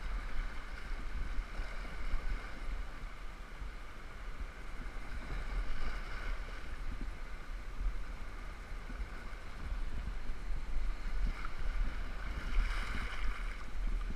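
Wind buffeting a body-worn camera's microphone, over the steady rush of a fast river flowing below. The rushing swells briefly near the end.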